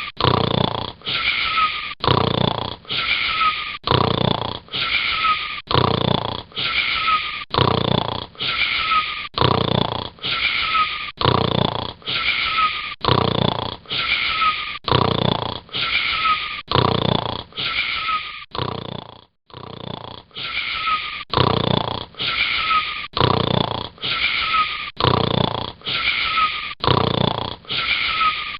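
Snoring: short wheezy snores repeating in a fast, very even rhythm, nearly two a second, each one alike. The snoring breaks off briefly about two-thirds of the way through.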